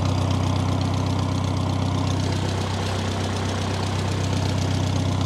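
1950 Farmall Cub's four-cylinder flathead engine idling steadily and running well, with maybe a little lifter noise by the owner's ear but no major noises.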